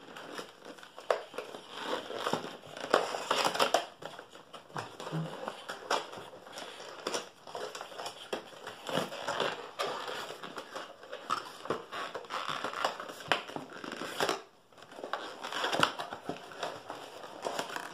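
Paperboard retail box being opened by hand: flaps and tuck tabs pulled and rubbed, making a continuous run of crinkling rustles and small clicks, with a short lull about three quarters of the way through.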